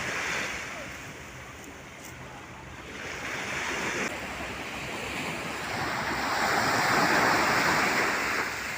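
Sea surf washing on a beach: a steady rush that ebbs, then swells to its loudest about seven seconds in and falls away again as a wave breaks and recedes.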